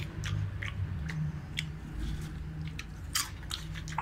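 A person chewing popcorn, with irregular crisp crunches.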